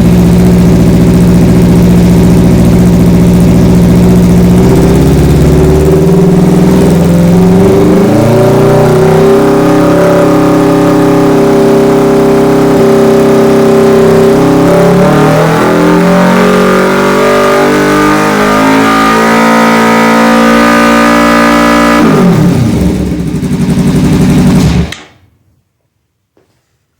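Kawasaki Ninja 300's parallel-twin engine through a Coffman's Shorty slip-on exhaust. It runs steadily, is revved up and held at about 4,000 rpm, then revved higher and held at about 7,000 rpm. The revs then drop and the sound stops abruptly a couple of seconds before the end.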